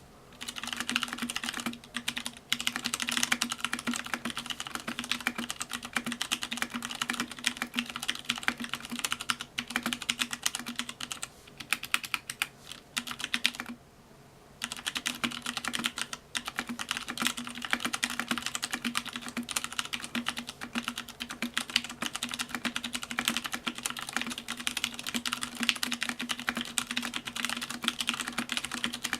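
Fast, continuous typing on a KUL ES-87 mechanical keyboard: a rapid run of keystroke clicks, with a short pause about two seconds in and a break of nearly a second about fourteen seconds in.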